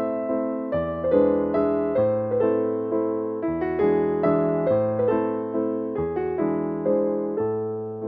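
Background piano music: soft struck notes that die away, over a bass note that changes every second or two.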